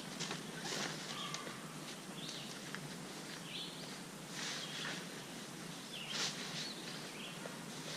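Scattered bird chirps over a faint steady outdoor background, with a few brief swishes, as of nylon tent fabric being handled, at about one, four and a half and six seconds.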